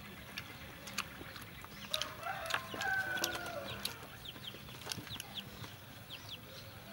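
A rooster crowing once, about two seconds in, over small clicks of hands picking at food; short high chirps follow in the second half.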